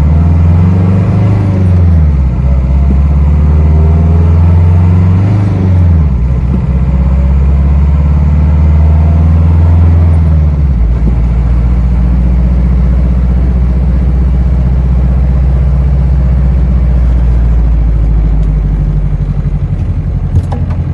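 Old car engine driving: it revs up and eases off a few times, then drops to a lower, steady running note about halfway through.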